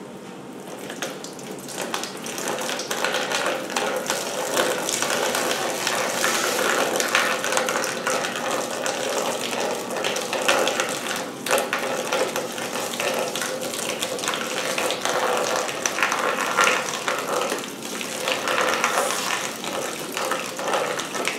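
Petrol gushing and splashing into a plastic tub as it is pumped out of a vehicle fuel tank, over the steady whirr of a battery-powered pump. The flow builds up about a second in.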